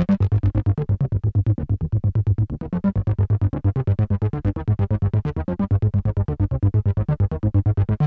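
Behringer Poly D analog synthesizer playing a fast, distorted bass sequence from its built-in sequencer, about eight short notes a second, mostly low with a few higher steps. The tone goes duller for a moment and then brighter again as the knobs are turned.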